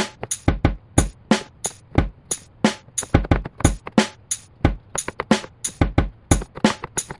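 Background music with a steady, busy drum beat.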